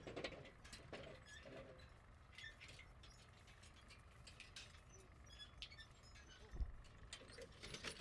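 Near silence with faint, scattered clicks of a computer mouse and keyboard, and one soft low thump about six and a half seconds in.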